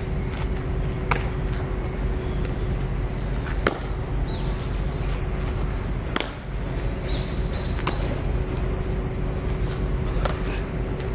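A baseball smacking into a leather glove during a game of catch: four sharp pops a few seconds apart. Small birds chirp high in the background from about halfway on, over a steady low outdoor rumble.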